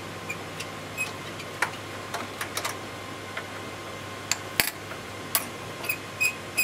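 Irregular metallic clicks and ticks as a hand tool works the screw of a steel bracket holding a server processor module, several a second, coming faster and ringing briefly near the end, with one sharper click about two-thirds of the way in. A steady low hum runs underneath.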